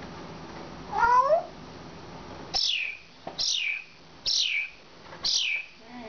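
African grey parrot calling: a short call with a gliding pitch about a second in, then four high whistles, each falling in pitch, about one a second.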